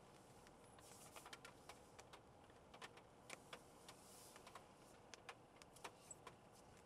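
Scattered raindrops tapping on the car at irregular intervals, heard faintly from inside the cabin over a low steady background.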